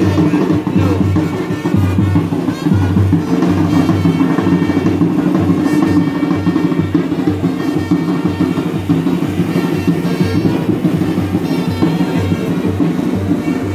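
Music with a steady drum beat and a deep, pulsing bass line.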